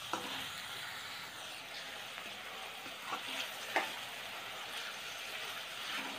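Chopped onions frying in oil in a metal wok, a steady sizzle, with a metal spoon stirring and scraping through them and knocking against the pan a few times, loudest nearly four seconds in. The onions are being sautéed until they brown.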